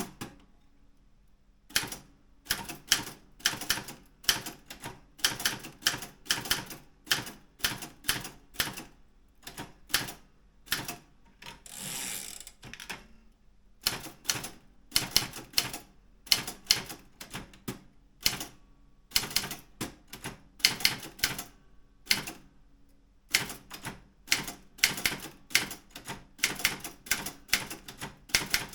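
Daro Optima M16 typewriter being typed on: quick runs of key strikes in word-length bursts with short pauses between them, starting about two seconds in, with a longer rasping sound near the middle.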